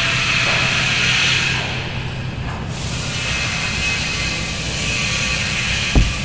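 Steady workshop machinery noise: a hiss over a low hum, with a single thump about six seconds in.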